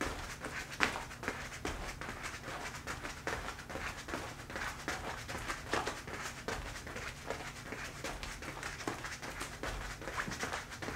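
Moccasined feet tapping and hopping on a foam floor mat in a side-tap dance step: irregular soft thuds and scuffs, with the leather fringe swishing.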